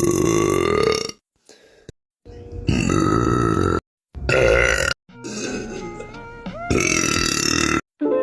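Loud, drawn-out burps, about four in a row, each lasting a second or so, with abrupt silent breaks between them.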